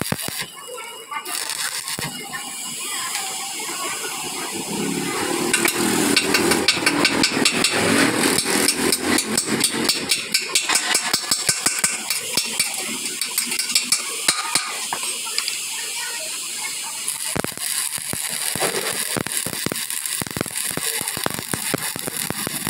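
Stick (arc) welding on a broken steel truck rear axle housing: the arc crackles and sputters irregularly. Midway the welding pauses while slag is chipped off the weld with a hammer and chisel, and it resumes near the end.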